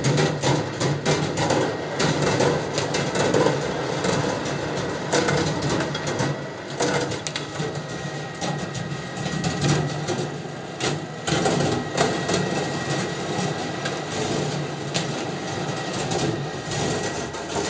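Marbles rolling and clattering along the copper track of a rolling ball sculpture, with many small clicks and knocks from the balls over a steady hum.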